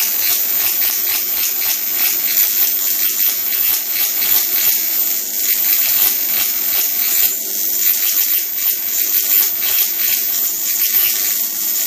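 Electric arc crackling and buzzing steadily between the copper wires of a small Jacob's ladder fed by a car ignition coil, which is driven by a low-voltage induction-heater inverter board. The sound is a dense, high-pitched, hissing crackle with no pauses.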